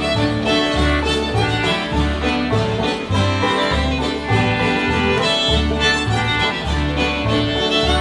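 Old-time string band playing a fiddle tune together: strummed acoustic guitar, banjo, button concertina and upright bass, with the bass alternating between two low notes about twice a second.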